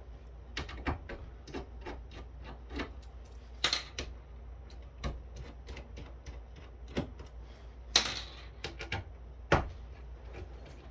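Irregular light clicks and knocks of circuit boards and metal chassis parts being handled on a workbench, with louder knocks about four, eight and nine and a half seconds in.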